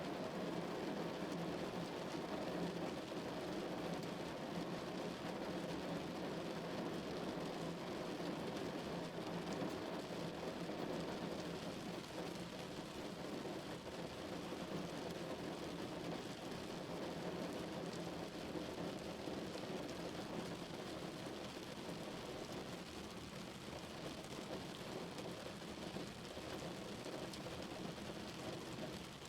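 Steady rain drumming on a car's roof and windows, heard from inside the car.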